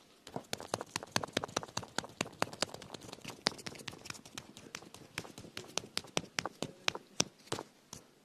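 A rapid, irregular run of sharp clicks and taps, several a second.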